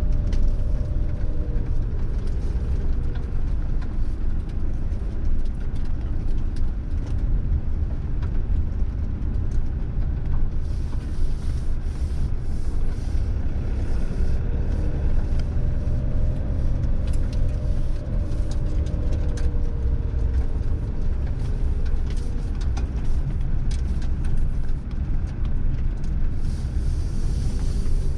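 Fiat Ducato campervan's diesel engine and road rumble heard from inside the cab while driving, the engine note rising and falling a few times as the speed changes.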